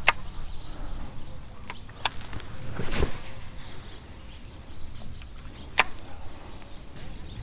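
Steady high-pitched insect buzz over outdoor background noise, fading near the end, with four short sharp clicks spread through it.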